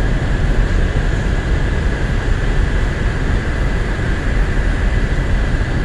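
Steady low rumble of queued coach buses' diesel engines idling, with a faint steady high whine over it.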